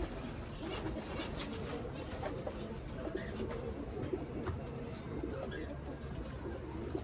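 Domestic pigeons cooing steadily in the loft, with a few light clicks and rattles from a wire cage being opened and handled.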